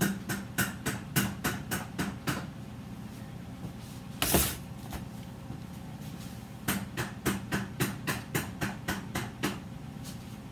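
Loaf soap mold full of fresh cold process soap batter being tapped down on a stainless steel work table to settle the batter: a run of quick knocks, about four a second, one heavier knock, then a second run of quick knocks.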